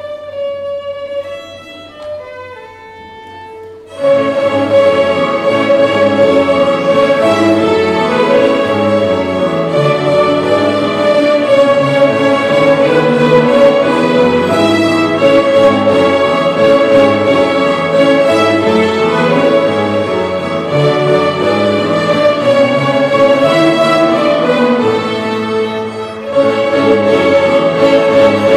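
A large ensemble of young violinists playing a tune together. A few quieter single notes lead in, then the full group comes in loudly about four seconds in, with a brief lull near the end.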